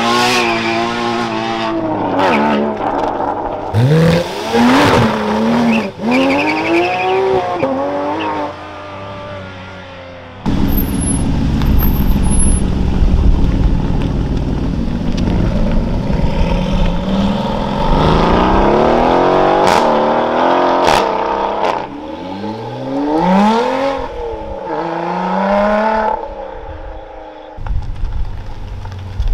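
Supercars accelerating away one after another. First a Porsche Cayman GT4's flat-six is held at high revs and blipped up and down while its rear tyres spin and squeal. About ten seconds in, a deeper engine takes over as an Aston Martin Vantage pulls away, and near the end a Ferrari F12's V12 revs rising and falling as it pulls out.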